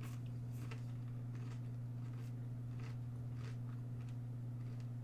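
Someone chewing crisp breadcrumb-coated vegan chicken-free southern fried strips, with short crunches every half second or so, over a steady low electrical hum.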